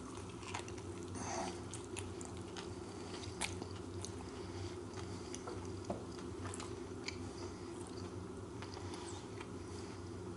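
A person chewing a mouthful of crispy chicken sandwich, with scattered small crunches and mouth clicks over a steady low hum.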